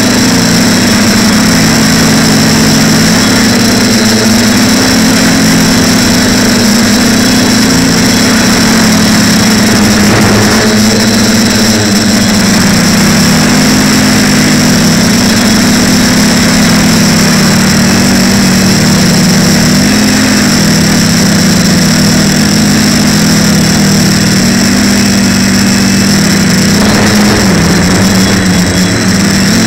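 TBS Discovery quadcopter's brushless motors and propellers buzzing loudly, heard from on board, the pitch rising and falling every few seconds as the throttle changes, over a steady high whine.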